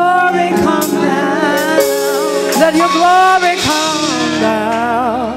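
Gospel worship music: sung vocals with bending, drawn-out melody lines over a sustained keyboard or pad accompaniment.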